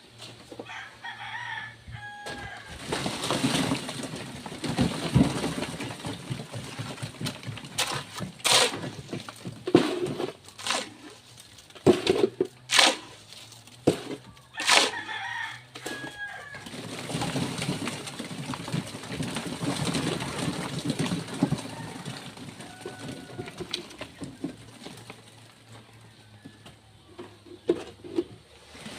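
Chickens clucking and a rooster crowing, over a rough scraping noise with a run of sharp knocks a third of the way in.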